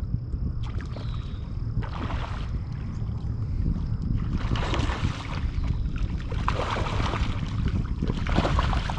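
Wind buffeting the microphone in a steady low rumble, with several short bursts of water splashing.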